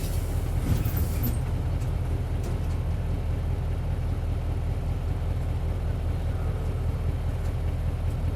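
Isuzu 8PE1-S V8 diesel engine of an Isuzu Cubic KC-LV280L bus running steadily, with a deep, even rumble and no clear rise or fall in revs. A few faint clicks and rattles sound about a second in.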